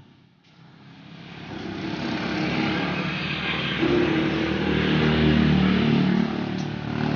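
A motor vehicle's engine passing by, growing steadily louder over several seconds and loudest near the end.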